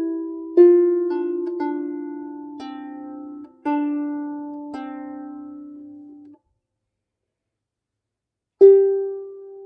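Derwent Discovery 16 lap harp plucked one note at a time, about six notes of a simple melody, each ringing on and fading. About six seconds in the sound cuts off suddenly, and after a gap of silence a fresh, louder note is plucked near the end.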